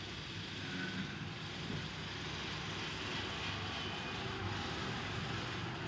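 A steady low hum and rumble of running machinery in the background, unchanging throughout, with no distinct knocks or clicks.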